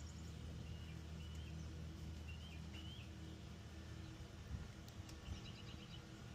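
A few faint bird chirps and a short trilled call over a steady low hum.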